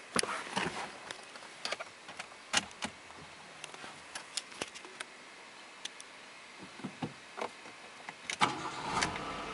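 Scattered clicks and knocks of a car key and handling in a small car's cabin. Near the end the key is turned to the ignition position, and a steady hum with a faint whine starts up.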